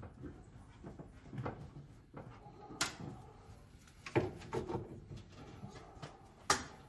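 Scattered metal clicks and clunks from parts and wiring being handled in a truck's engine bay, with a sharp click about three seconds in, a cluster of knocks a second later and another sharp click near the end.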